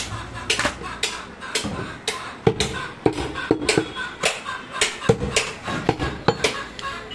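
A heavy butcher's knife chopping goat meat on a wooden stump block, with repeated sharp chops about two to three a second.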